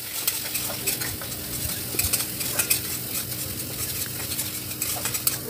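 A spatula stirring and scraping spice paste in hot oil and ghee in a metal kadai, with a steady sizzle and many quick clicks and scrapes against the pan. This is the paste being fried down (kosha), before the dal is added.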